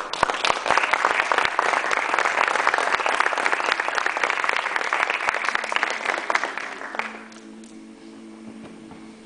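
Audience applauding a choir as the conductor bows, dying away about seven seconds in. Near the end, a few soft, steady held notes sound together.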